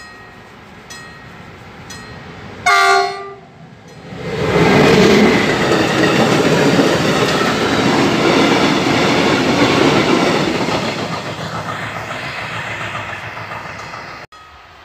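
An electric freight train's horn sounds one short blast about three seconds in. The train then passes close by, its wagons' wheels loud on the rails, and the noise fades as the train moves away.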